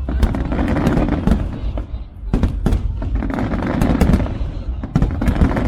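Fireworks exploding in quick succession: many sharp bangs and cracks over a low rumble.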